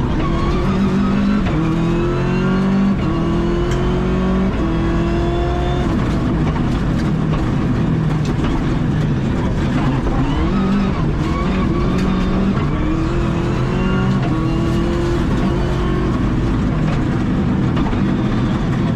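Rally car engine heard from inside the cockpit, driven flat out. It revs up through the gears with a pitch climb that drops back at each upshift, eases off in the middle, then accelerates through the gears again.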